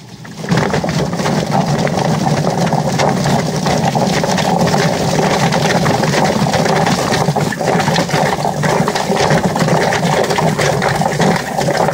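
Homemade Whizbang-style drum chicken plucker running loud and steady, its rubber-fingered plate spinning and slapping a scalded chicken around inside the drum to strip its feathers. The noise starts about half a second in.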